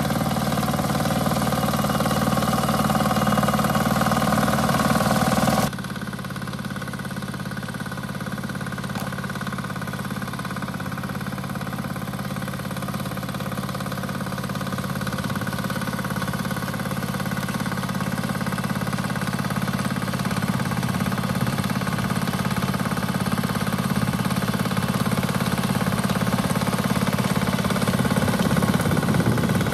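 BCS 853 walk-behind tractor's diesel engine running steadily at about one-third throttle, driving a 71-inch dual-action sickle bar mower through hay. The sound drops suddenly about six seconds in, then slowly grows louder again.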